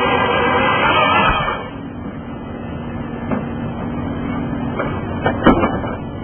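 Hydraulic grapple saw's chain cutting through a dense hardwood log, loud until about a second and a half in, when the cut ends and the level drops. The carrier machine's engine and hydraulics then keep running steadily, with a few knocks and one loud clunk near the end.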